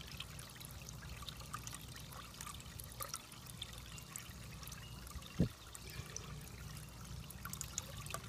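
Water trickling steadily, with faint crackles over a low rumble, and a single soft thump about five seconds in.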